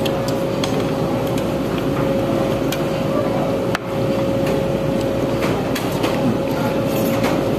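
Busy restaurant background noise: a steady murmur of voices over a constant hum, with scattered light clicks of tableware.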